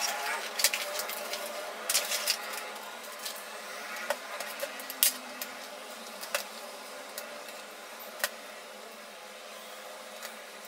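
Hands working on a laptop lid and LCD panel: scattered clicks and light taps with soft rubbing, busiest in the first few seconds and thinning out later.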